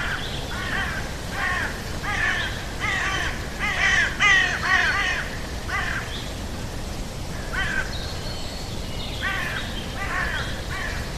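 Jungle soundscape bird squawking over and over in short, harsh, caw-like calls, several a second, loudest midway, with a short pause before they resume, over a steady low background rumble.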